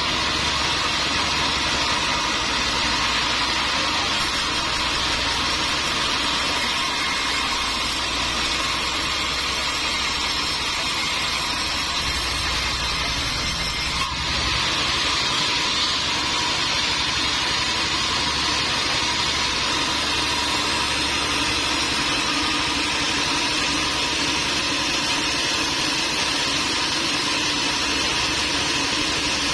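Sawmill machinery running steadily: a constant engine hum under a broad hiss, with a brief dip about halfway through.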